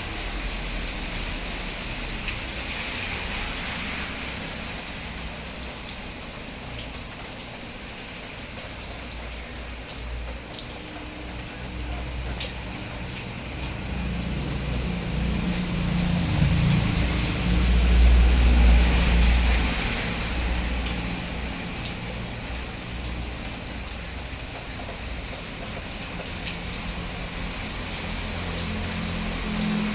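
Steady rain falling, an even hiss throughout, with a low rumble that swells to its loudest a little past halfway and then fades.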